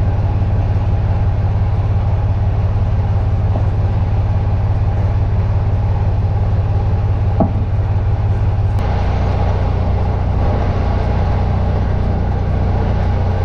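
Semi truck's diesel engine running steadily under way, a deep drone heard from inside the cab. About nine seconds in the engine note steps down a little and a hiss of road noise rises.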